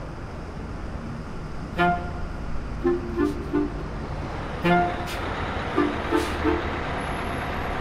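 Steady low rumble of city street traffic, with a city bus pulling in. Over it a short horn-like toot followed by three quick lower notes, the same figure played twice.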